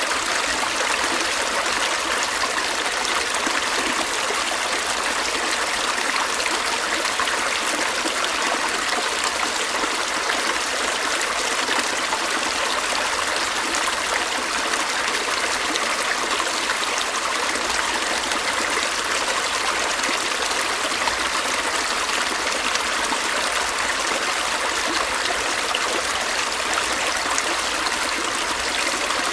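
A stream running steadily over rocks: continuous rushing and trickling water with no breaks or changes.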